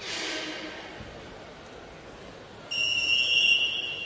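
Referee's whistle blown once to start the wrestling bout: a single loud, steady, shrill blast that fades out quickly. A brief swell of hall noise comes at the very start.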